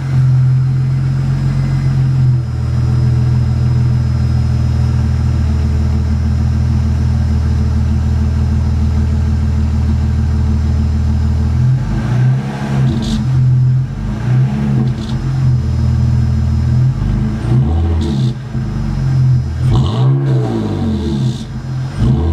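BMW E46 3 Series convertible's inline-six engine idling steadily, then blipped several times from about halfway through, its pitch rising and falling with each rev.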